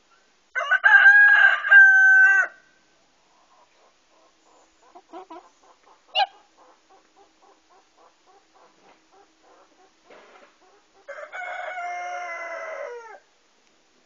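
A rooster crowing twice, about ten seconds apart, the second crow quieter and falling away at its end, with faint short clucking sounds in between.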